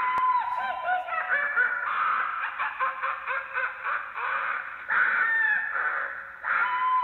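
Halloween screaming sound effect played by an Adafruit Audio FX sound board through a speaker, set off suddenly by a hand reaching into a cauldron past its proximity sensor. Overlapping wavering, cackling cries, with a short break a little after six seconds before it starts again.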